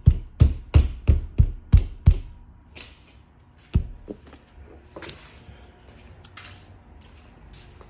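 Rapid, evenly spaced thumps on a car's sheet-metal panel, about three a second, stopping about two seconds in. A single knock follows near four seconds, then light rustling and scraping of the deadener material.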